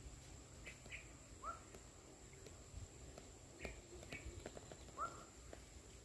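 Faint animal calls: a short rising note, heard twice about three and a half seconds apart, with a few faint ticks, over a steady thin high-pitched tone.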